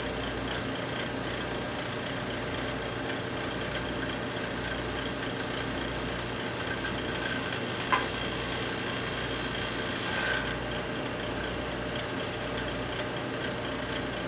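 Vacuum pump running steadily, with a steady high-pitched whine over it and a brief click about eight seconds in.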